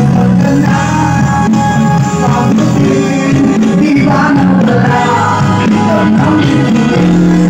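Live band music with a singer, played loud through a concert sound system.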